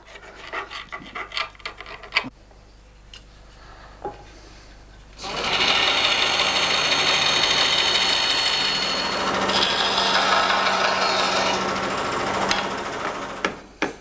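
Band saw cutting a boxwood spoon blank: a loud, steady sawing noise that starts abruptly about five seconds in and stops just before the end. Before it come faint scratching and small knocks of the spoon's outline being marked on the wood.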